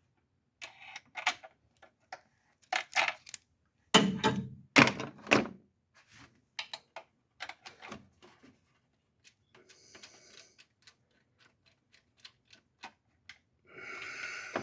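Metal tools and intake-manifold bolts clinking and knocking as the bolts are fished into place and hand-started, with a cluster of louder knocks about four to five seconds in and a couple of short rattling passages later on.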